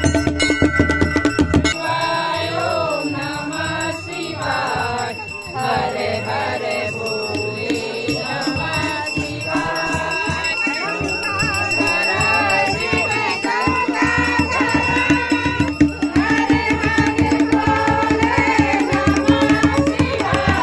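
Hindu devotional music: a group of voices chanting and singing over a steady drone, with drum beats and rattling percussion. The voices come in about two seconds in, after drumming.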